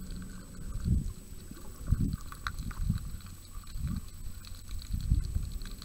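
Muffled underwater sound of water moving around the camera as it is carried through the water: low surges about once a second over a steady low rumble, with faint scattered clicks.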